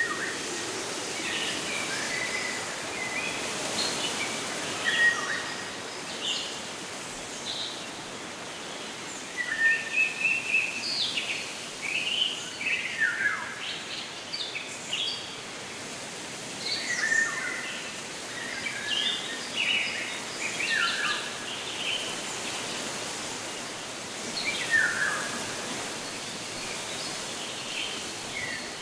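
Several birds chirping and calling in short phrases, some with quick falling whistles, over a steady rushing background hiss.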